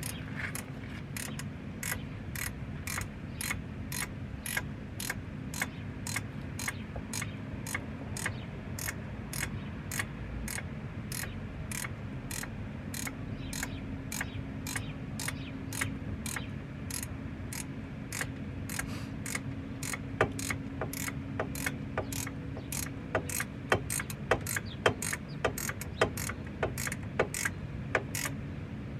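Hand ratchet wrench clicking as it is worked back and forth on the bolts of a rear wheel hub assembly, about two clicks a second. Near the end the clicks come louder and less evenly.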